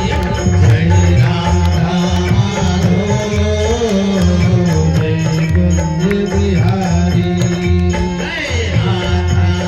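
Hindi devotional bhajan music: a melody over a steady, repeating drum rhythm.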